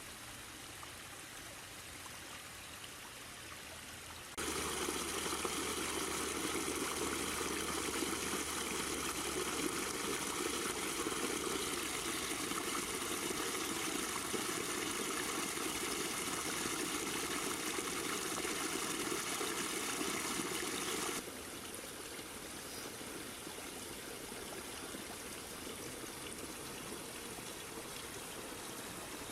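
Water running and trickling over the rocks of a backyard pondless waterfall, a steady rush. It turns abruptly louder about four seconds in and drops back to a softer trickle about 21 seconds in.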